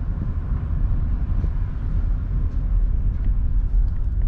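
Small car driving slowly, its engine and tyres making a steady low rumble.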